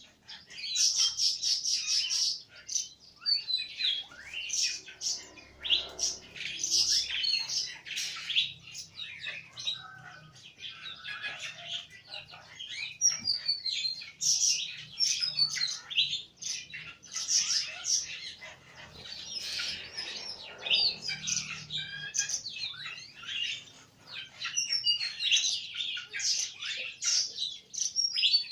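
Small birds chirping continuously, a dense run of rapid, short, high-pitched calls and quick upward and downward slurs.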